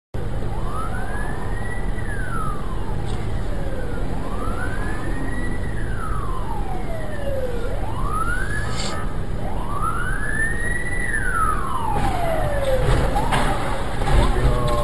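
Ambulance siren wailing, a slow rise and fall repeating about every four seconds, over the low hum of idling traffic. Near the end the wail stops and a crash follows, several sharp bangs as the ambulance collides and tips over.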